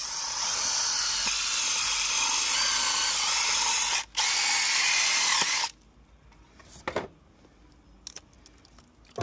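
Cordless drill with a red bit boring a hole through the side of a plastic isolator enclosure for a cable gland: a steady, high-pitched drilling run of about four seconds, a brief break, then another second and a half before it stops.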